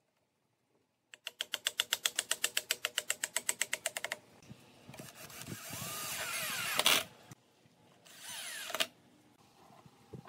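Rapid even clicking, about eight a second, for about three seconds. Then a cordless drill drives a screw into wood: the motor runs for about three seconds with its pitch shifting and cuts off, then gives a second short burst.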